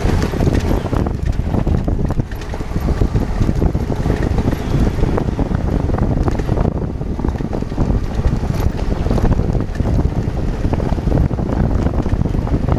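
Adventure motorcycle riding over a loose dirt and gravel road, with wind buffeting the microphone over the low rumble of the ride and many small knocks and rattles.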